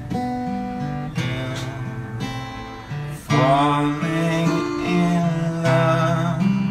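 Acoustic guitar strummed in slow chords, with a man singing along.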